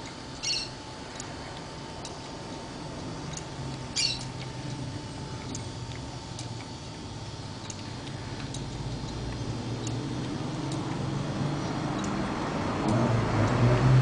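Cutaway motorcycle engine training model turning over slowly: light mechanical ticks about once a second and two short high squeaks, one about half a second in and one about four seconds in. A low hum grows louder toward the end.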